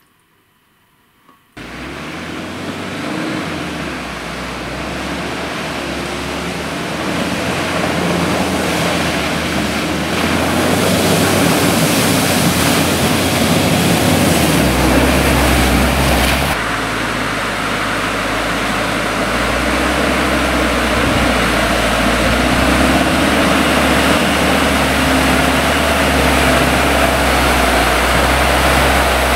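Six-wheeled Trekol all-terrain vehicle running through deep mud and water: a steady engine hum under continuous churning and splashing. It starts about a second and a half in, and the engine note shifts about halfway through.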